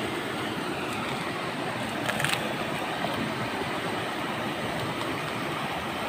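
Steady rushing of whitewater river rapids close by, with a brief clatter about two seconds in.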